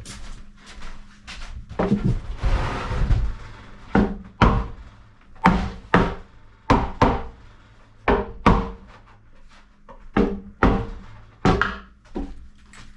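About a dozen sharp knocks, unevenly spaced, as the wooden parts of a cabinet are tapped together during assembly, with a brief scraping noise about two seconds in.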